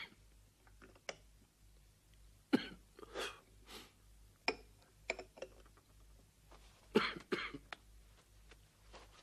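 Scattered knocks, clinks and rustles of an oil lamp being lit and its glass chimney handled, then movement about a room. The sharpest knocks come about two and a half seconds and seven seconds in.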